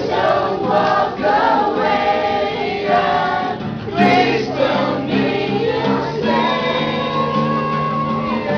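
A group of young men singing a song together to an acoustic guitar, holding a long note near the end, with one sharp knock about four seconds in.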